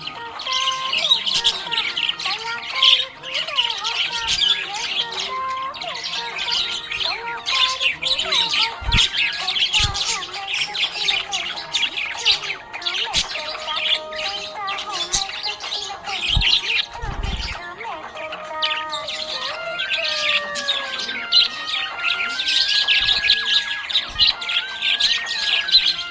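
Budgerigars chirping continuously, a dense run of quick high chirps.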